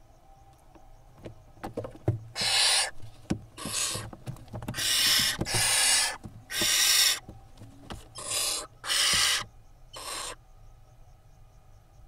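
Barn owl nestlings screeching: about eight harsh, hissing screeches, each under a second, with scuffling and scraping in the nest between them. The chicks are squabbling over a vole.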